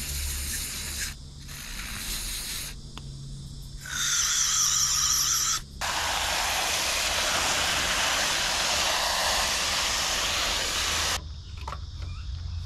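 Several short hisses of an aerosol can of electronics cleaner sprayed into an air-flow sensor. Then a garden hose jet runs water through a cone air filter for about five seconds and cuts off abruptly. A few faint clicks near the end.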